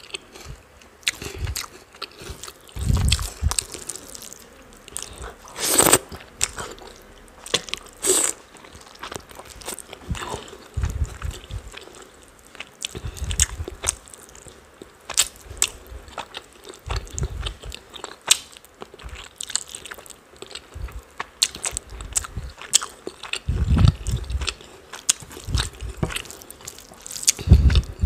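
Close-miked eating sounds: a person chewing chicken curry and rice, with irregular wet mouth clicks and smacks and a couple of louder, longer smacks about six and eight seconds in.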